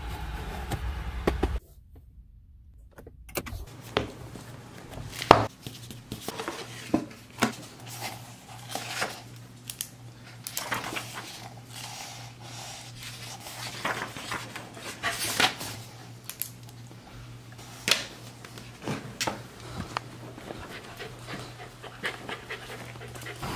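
A dog panting, among scattered sharp clicks and knocks. A car cabin's low rumble fills the first second and a half.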